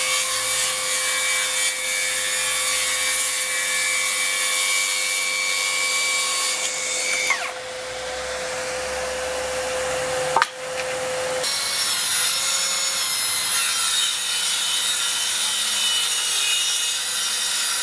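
Cordless 18 V track saws cutting along a guide rail: a Milwaukee M18 saw runs with a steady whine that winds down about seven seconds in. About three seconds later a saw starts with a quick rising whine, and from about eleven seconds in the Metabo 18 V plunge saw runs steadily through the cut.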